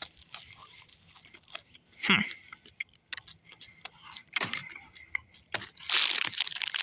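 Handling noise from plastic toy figures among popcorn and foil blind bags: scattered small clicks, crunches and rustles, then foil wrapper crinkling steadily and loudly for the last second or so.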